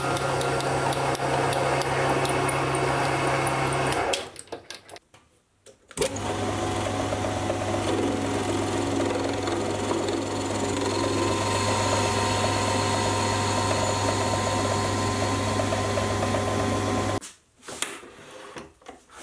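A mini lathe running steadily with a motor hum while machining a steel bar: first centre-drilling the end, then turning it with an insert tool. It stops about four seconds in, starts again at a slightly lower pitch about two seconds later, and stops again near the end, followed by a few clicks.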